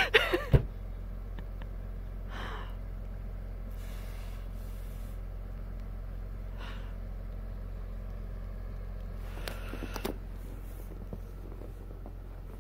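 A car door thumps shut about half a second in, then the Audi Allroad's engine runs with a low, steady idle hum, with a few short breathy rushes of noise over it.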